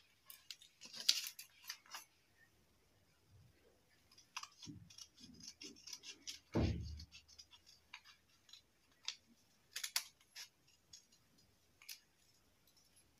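Scissors snipping through folded paper while cutting out a heart shape: a run of faint, irregular snips and clicks, with one louder dull thump about halfway through.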